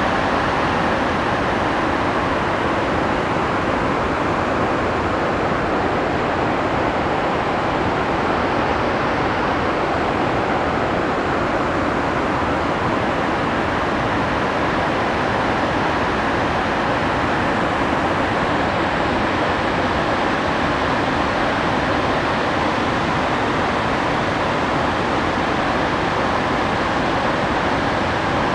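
Overflow water pouring down a dam's concrete spillway chutes and crashing into the basin below: a loud, steady rush of white water.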